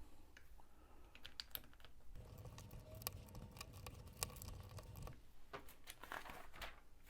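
Small plastic Lego pieces clicking and tapping as they are picked through and handled, a scatter of light, irregular clicks.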